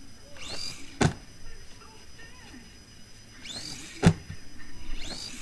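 Small electric motor of a Losi Micro-T micro RC truck whining up in pitch as it accelerates, each run ending in a sharp knock; this happens twice, about three seconds apart, with a third whine starting near the end.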